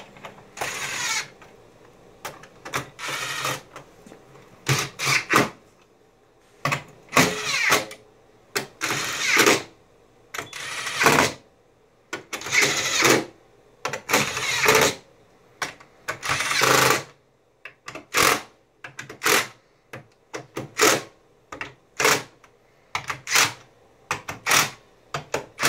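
Cordless impact driver set to reduced power, running in a string of short hammering bursts, each up to about a second long, as it drives bolts one after another; the low setting is meant to avoid over-tightening or stripping them.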